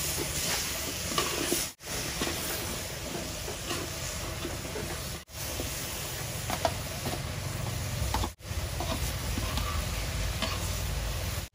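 Chunks of sweet potato sizzling in a pan while a spatula stirs and scrapes them around, with short scraping clicks. The sound drops out briefly three times.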